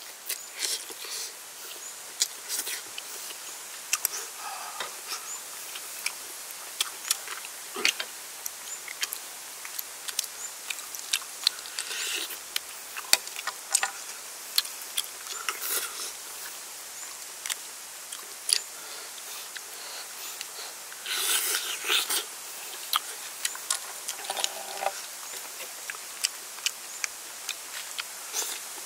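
Close-up eating sounds of noodles: slurping and chewing with many short wet clicks and smacks, and a few longer slurps, the longest about three quarters of the way through.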